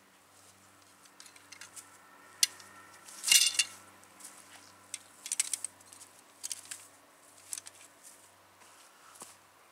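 Steel Conibear 330 body-grip trap clinking and clanking as it is handled and set by hand, with a brief ringing metal clatter about three seconds in and scattered lighter clicks after.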